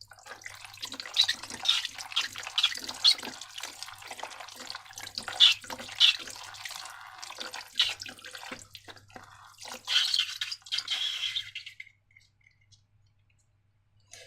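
Slime being worked by hand: a run of wet, sticky clicks and squelches that stops about twelve seconds in. A faint steady hum lies underneath.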